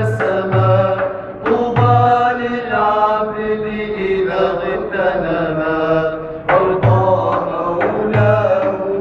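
Men singing an Arabic ibtihal (Islamic devotional chant) in long, melismatic lines that slide between notes. A handheld frame drum gives deep beats, a few near the start, around two seconds in and again near the end.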